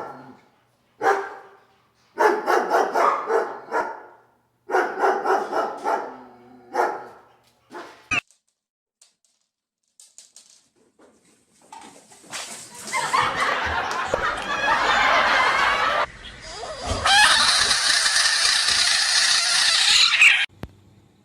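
A dog barking and yowling in several short bursts, followed later by a long stretch of loud, noisy sound that cuts off suddenly near the end.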